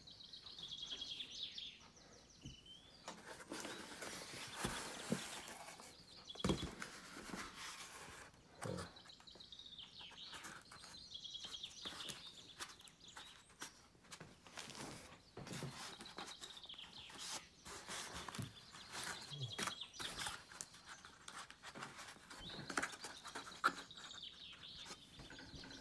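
Hands handling and opening a taped cardboard shipping box: scattered scrapes, taps and rustles of cardboard. Birds chirp repeatedly in the background.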